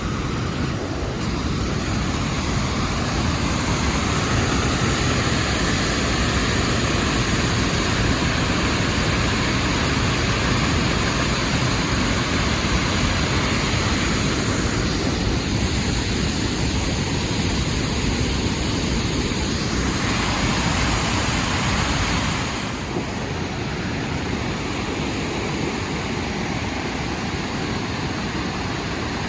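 Steady roar of water pouring over a waterfall, a little quieter for the last few seconds.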